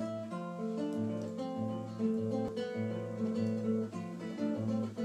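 Acoustic guitar music with a steady rhythm.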